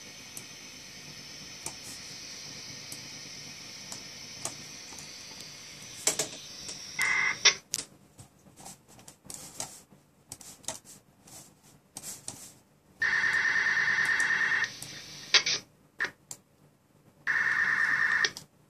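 Software-defined radio receiver audio, tuned near 441.9 MHz, heard through a laptop speaker. A steady hiss of receiver noise runs for about six seconds, then drops to near quiet with scattered clicks. Three short buzzing tone bursts break in: a brief one about seven seconds in, a longer one of about a second and a half near the middle, and another of about a second near the end.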